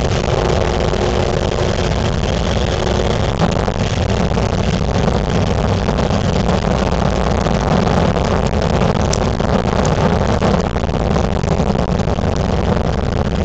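Cockpit noise of a 1956 Cessna 182 on a snowy strip: the six-cylinder Continental engine and propeller running steadily at low power under the rush of air, with scattered knocks and rattles from the airframe.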